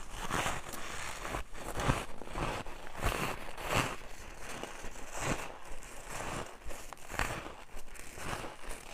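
Close-up bites into ice, crunching: a run of crisp, irregularly spaced crunches.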